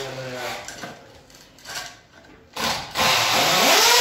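An electric power tool's motor running briefly and stopping, a short burst, then running again loudly near the end with its pitch rising and falling as the speed changes.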